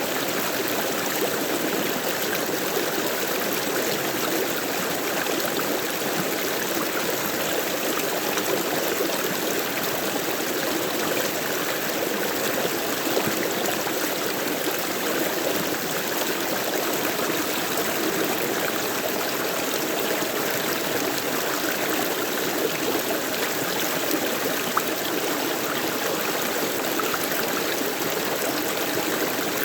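Running water of a stream flowing steadily, with a continuous rushing and trickle.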